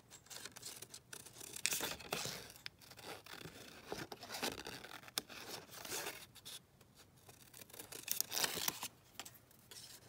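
Paper and craft pieces being handled on a work surface: irregular rustling, rubbing and scraping strokes.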